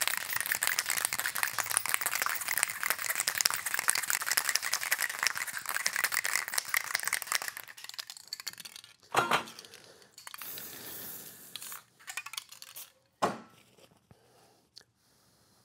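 Aerosol can of Blaster dry lube with Teflon being shaken hard, its mixing ball rattling rapidly for about seven seconds. After a pause come short hissing sprays of the lube.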